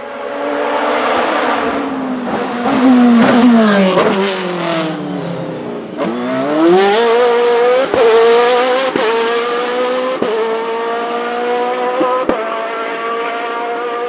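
Open-wheel single-seater race car engine at high revs, dropping in pitch through quick downshifts as it brakes, then accelerating hard from about six seconds in with a rising note and several quick, sharp upshifts.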